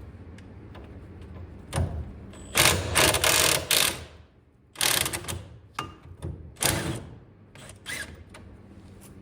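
Hand ratchet wrench clicking in several bursts as it turns a bolt on the car's front suspension, the longest burst lasting about a second and a half, with single metal clicks and taps between.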